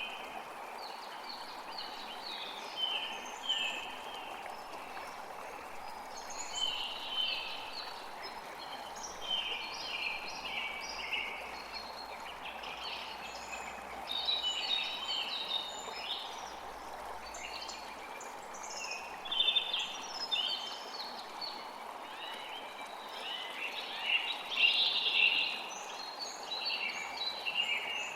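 Steady rain on a roof, with birds calling over it in many short, repeated chirps that come and go.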